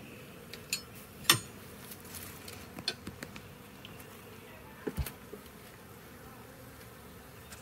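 Honey bees buzzing steadily around an opened hive, with a few sharp clicks and knocks of hive parts being handled, the loudest a bit over a second in.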